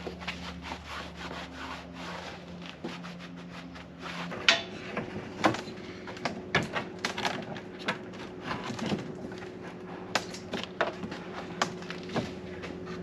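Irregular scraping, rubbing and light knocks of hand work cleaning an old car heater box, over a steady low hum; the work gets busier about four seconds in.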